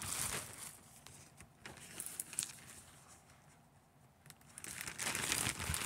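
Rustling and handling noises of clothing and packaging being moved about, with scattered small knocks and a longer rustle about five seconds in.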